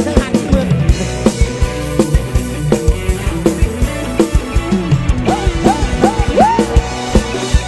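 Live band music: a drum kit keeps a fast, steady beat over heavy bass, and a melody slides up and down in pitch in the second half.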